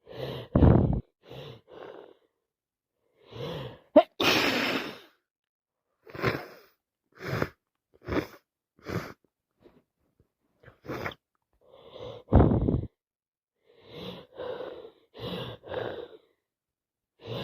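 A person with a head cold sneezing and sniffling: a breathy build-up and a sneeze about four seconds in, then a run of short sniffs and breaths, with another loud burst about twelve seconds in.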